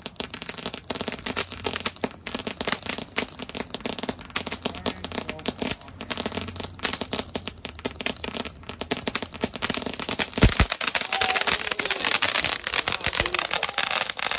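Ground fountain firework burning, a continuous fizz and dense crackle of spark ejection that grows fuller and louder after about ten seconds. There is a single low thump at about the same moment.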